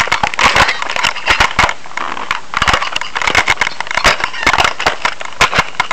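Toy packaging being opened and handled: dense crinkling and crackling with many small clicks.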